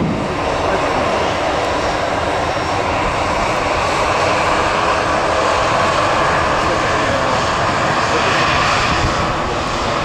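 Aircraft engines running at an airport: a steady, fairly loud rushing noise.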